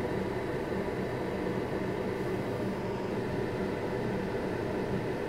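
Steady whir of a fan running, with a low hum underneath.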